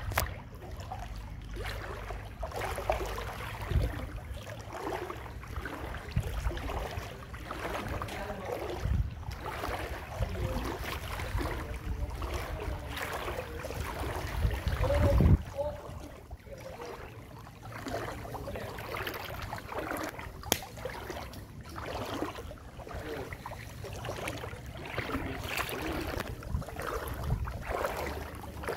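Floodwater sloshing and splashing around the legs of someone wading through it, in uneven swishes over a steady low rumble, the loudest splash about halfway through.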